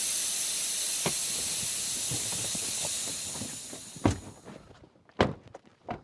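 Air hissing out of a punctured car tyre: a steady high hiss that fades away after about three seconds. Three short knocks follow near the end.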